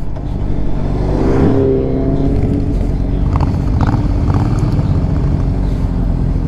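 Motorcycle engines running at low road speed with wind rumble on the bike-mounted microphone, as the bikes slow toward a stop.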